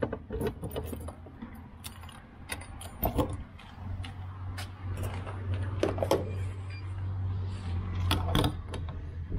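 Refuelling at a petrol pump: scattered clicks and clatter of handling the fuel nozzle and filler, with a steady low hum that sets in about four seconds in.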